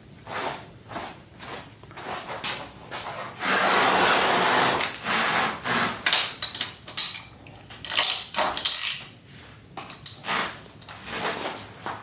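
Ratchet torque wrench clicking as the bar clamp's base clamp bolts are tightened to torque spec, with a run of rapid ratcheting about three and a half seconds in and scattered metal tool clinks.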